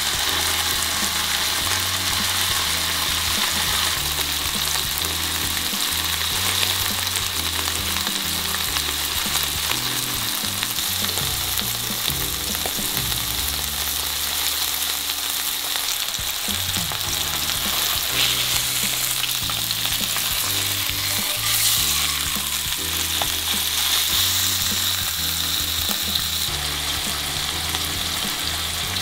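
Miso-marinated chicken thigh frying in oil in a nonstick frying pan over low heat: a steady sizzle.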